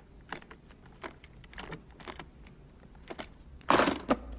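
Briefcase combination-lock number wheels clicking as they are turned with a finger, a scatter of small clicks, then two louder clacks close together near the end as the case's latches spring open.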